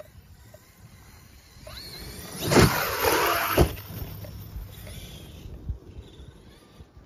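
Brushless electric RC truck speeding across grass: a rising motor whine about two seconds in, then a loud rush with two heavy thumps about a second apart, fading away.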